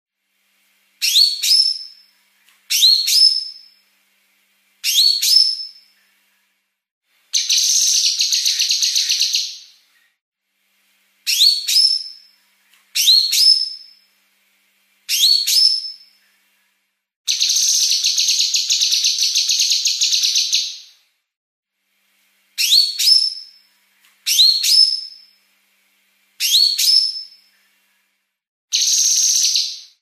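Female blue-masked leafbird (cucak kinoi) singing a fast song. Short whistled notes that sweep sharply upward, each in a quick pair, repeat every second or two. They alternate with longer dense, buzzy trills ('besetan') of two to three seconds, heard about eight and eighteen seconds in and again near the end.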